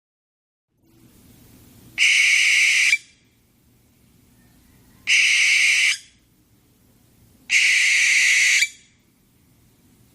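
Owl-call sound effect played three times, each a steady high-pitched call about a second long that starts and stops abruptly.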